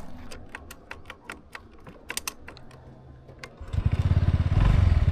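Scattered sharp clicks of loose stones on a rough track, then about three and a half seconds in a Honda SH 125 scooter's engine comes in loud with a fast, even pulse as it is throttled up.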